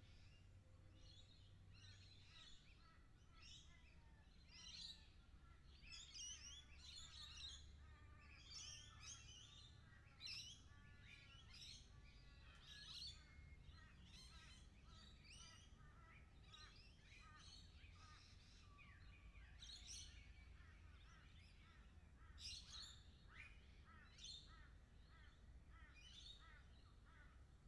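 A flock of lorikeets calling: many short, high, chattering calls overlapping, in louder clusters now and then.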